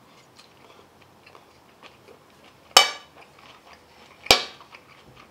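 A metal fork clinks sharply against a ceramic plate twice, about a second and a half apart, with a short ring after each strike; faint chewing sounds in between.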